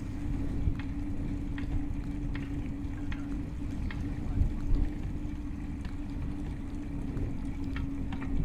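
Bicycle riding along a park path, heard from an action camera mounted on the handlebars: steady low rumble with a constant hum, and light ticks a little under once a second.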